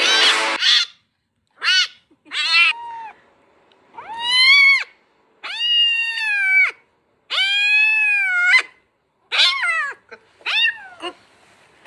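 A cat meowing over and over, about eight meows in all: two short ones, then three long drawn-out ones, then a few short ones again.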